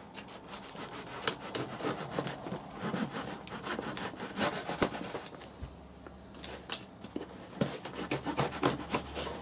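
A blade scraping and cutting through the clear plastic wrap and packing tape on a cardboard box, with the film crinkling and rustling under the hand in a dense run of irregular crackles.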